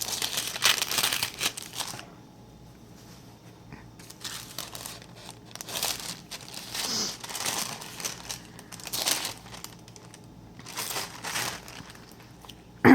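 Paper and plastic packaging rustling and crinkling as a mail envelope is handled and opened, in irregular bursts with short quiet pauses, loudest in the first couple of seconds.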